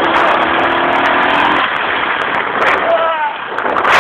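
ATV engine running under a loud, rough rushing noise on a low-quality camera microphone, with sharp handling clicks and a short rising tone about three seconds in.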